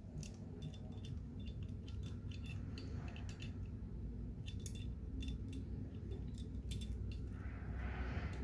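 Handling of a disassembled CO2 BB pistol's frame: scattered light clicks and taps of small gun parts, with a brief scraping rustle near the end, over a low steady hum.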